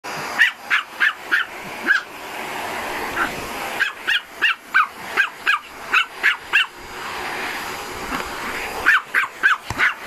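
A dog barks at a running vacuum cleaner in runs of quick, high-pitched barks, about three a second, with short breaks, over the vacuum cleaner's steady noise.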